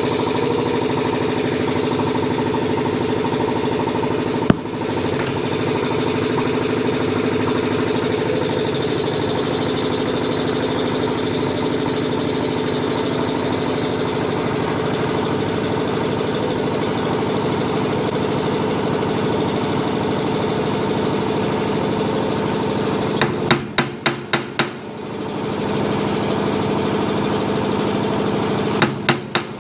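A machine running steadily with a pitched drone, with a single sharp tap about four seconds in and quick runs of sharp taps twice near the end.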